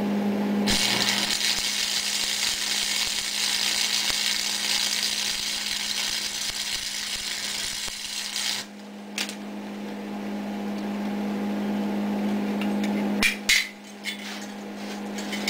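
Stick (arc) welder laying a bead on a steering shaft: the arc sizzles steadily for about eight seconds, then cuts off, over a steady low hum. A few sharp knocks follow in the second half.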